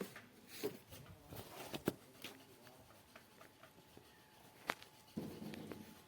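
A few scattered sharp clicks and knocks, with a short low hum about five seconds in.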